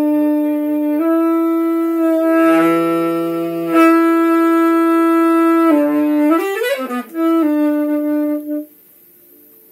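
Saxophone played in long held notes, with a quick rising run about six seconds in, then one more held note before the playing stops for the last second.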